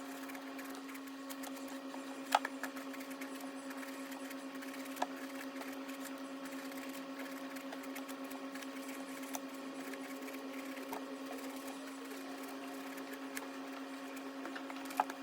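A small motor running with a steady, even hum, with a few faint clicks over it.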